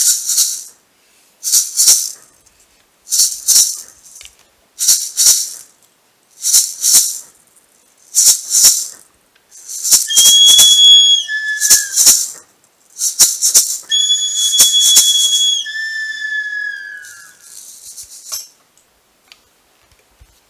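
A hand rattle shaken in a slow, steady rhythm, a quick double shake about every one and a half to two seconds. About halfway through, high whistle-like tones join in twice, each held for a second or two and sliding down in pitch as it ends.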